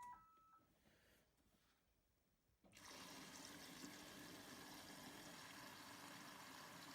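Front-loading washing machine starting a wash: a short electronic beep, then a few seconds in its water inlet opens and water begins running faintly and steadily into the detergent drawer as the machine fills.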